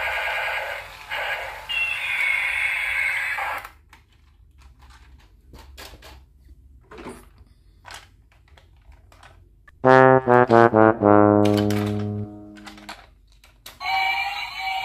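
Electronic tunes from battery-operated light-and-sound toys. A melody plays and stops abruptly about four seconds in, followed by several seconds of small clicks as the toys are handled and switched. Then comes a loud electronic jingle of quick short notes ending on one long held note, and another tune starts just before the end.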